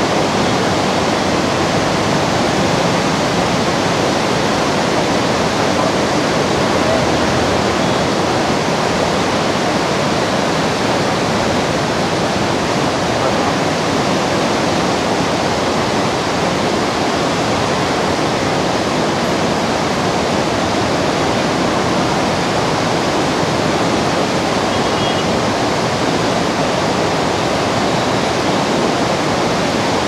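Steady, loud rush of the flooded Krishna River's turbulent water churning in standing waves below the Prakasam Barrage.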